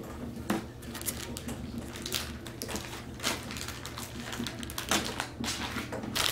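Grocery packages being handled and set down on a wooden table: irregular taps and knocks with crinkling plastic packaging, over a low steady hum.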